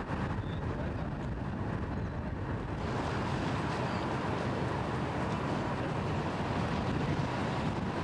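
Steady engine and rushing noise of a boat under way, getting a little louder and brighter about three seconds in.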